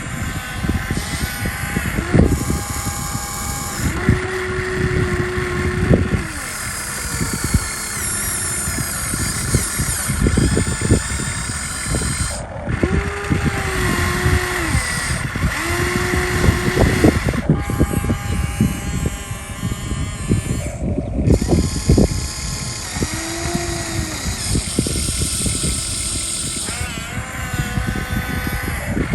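Excavator at work: a machine whine that rises and falls in short pulses every second or two, over continual knocking, clattering and scraping of soil and stones.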